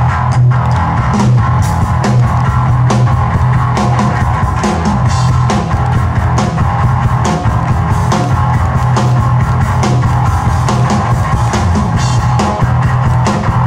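Loud rock music with a steady drum beat and heavy bass.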